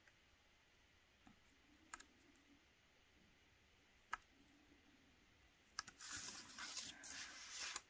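Near-silent room tone broken by two small clicks, about two and four seconds in, then from about six seconds a couple of seconds of scratchy rustling and clicking as art supplies are handled on the tabletop.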